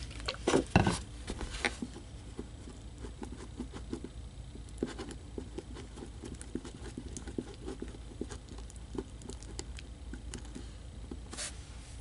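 Runny slime being stirred with a marker in a plastic tub: a run of small, irregular clicks, taps and wet squelches, with a few louder knocks in the first two seconds.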